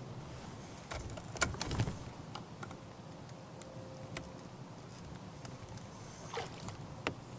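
Clicks and knocks from handling an electric trolling motor's tiller and mount on a canoe, loudest in a cluster about a second in and once more near the end, over a steady low hum.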